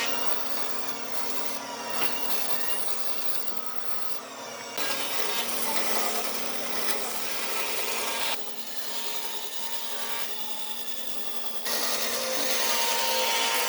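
A power tool working on wood: a steady motor hum under a rasping hiss. The hiss gets abruptly louder about five seconds in, drops back after about eight seconds, and rises again near twelve seconds.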